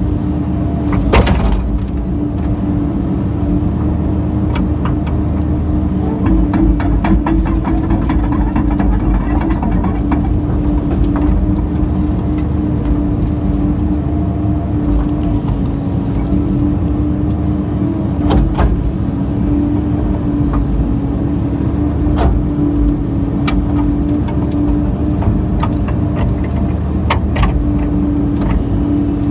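Kobelco excavator running steadily under load, heard from inside the cab, as the bucket digs out stumps and roots. There are scattered knocks and scrapes throughout, and a brief high squeal about six seconds in.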